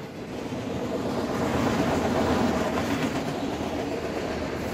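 Freight train's autorack cars rolling past: a steady rumble and rattle of steel wheels on the rails, growing louder toward the middle and easing off near the end.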